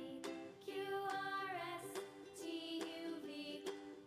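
Soft background music for children: a gentle melody of held notes.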